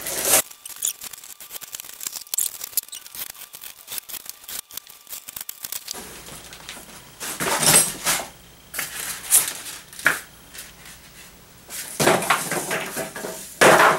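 Utility knife cutting open a cardboard box, a run of small scratchy clicks as the blade slices the tape and cardboard. From about six seconds in come louder cardboard scraping and rustling bursts as the box sleeve is lifted off the plastic-wrapped cabinet inside.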